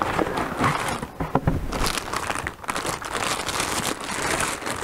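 Clear plastic packaging crinkling and rustling in the hands while a new aquarium water pump and its fittings are unwrapped, with many quick irregular crackles.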